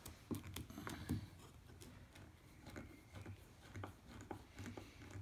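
Faint, irregular clicks and ticks of a hand screwdriver driving wood screws into timber.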